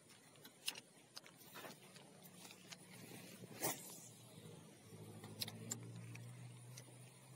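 Faint, steady low engine hum that comes in about three seconds in, with scattered sharp clicks and one short burst of rustling noise, likely from handling of the rod and reel.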